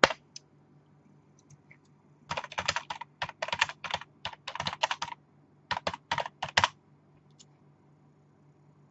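Typing on a computer keyboard: a run of quick key clicks lasting about three seconds from two seconds in, then a shorter run around six seconds in.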